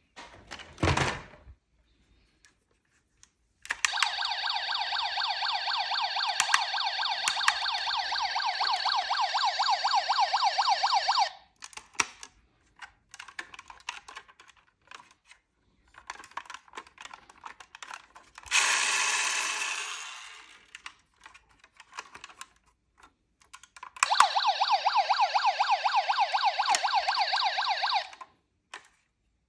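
Battery-powered electronic siren of a toy ambulance sounding through its small speaker as a rapidly pulsing tone: once for about seven seconds, then again for about four near the end. Between the two, small plastic clicks and taps of the toys being handled, and a short hissing whoosh about two-thirds of the way through.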